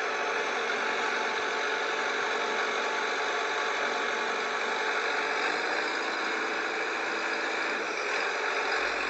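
Toy JCB excavator running with a steady, unchanging engine-like whir.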